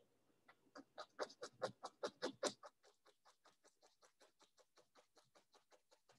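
A paint brush tapping oil paint onto a stretched canvas in quick dabs. The taps are louder for the first couple of seconds, then go on fainter and evenly at about five a second.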